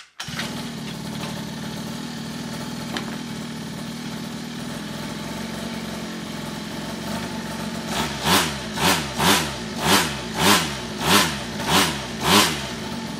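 MiniMoto pocket bike's 48cc two-stroke engine idling steadily on its freshly cleaned and adjusted carburettor, then revved in about eight quick throttle blips, each rising and falling back to idle, over the last five seconds.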